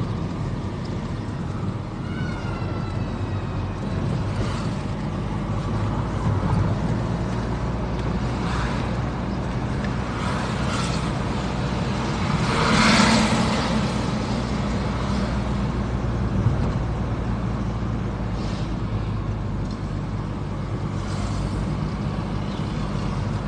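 Car driving along a road: a steady hum of engine and road noise, with a louder swell about halfway through.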